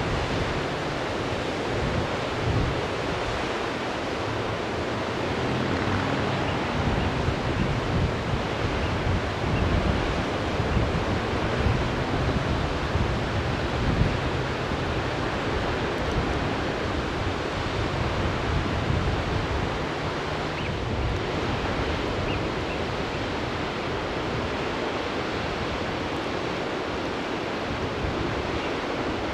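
Wind buffeting the microphone in irregular low gusts over a steady rushing noise from a white-water mountain river.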